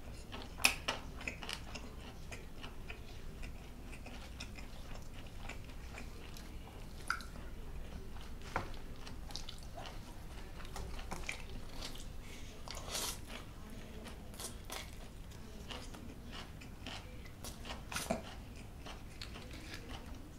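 Close-miked chewing of a mouthful of rice and beef: soft wet smacking and mouth clicks, scattered and irregular, with a few sharper clicks.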